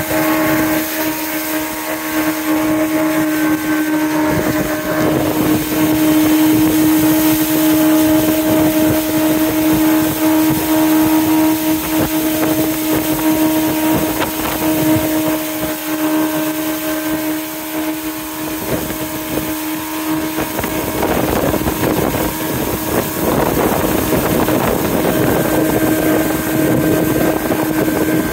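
Jet boat engine running steadily under way, holding one droning note over a constant rush of noise.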